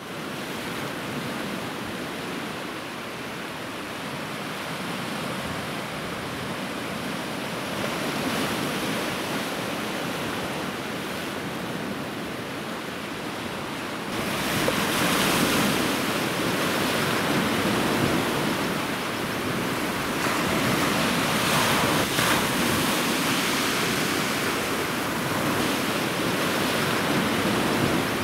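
Sea surf breaking and washing over jagged rocks: a steady rushing of waves and foam, louder from about halfway through.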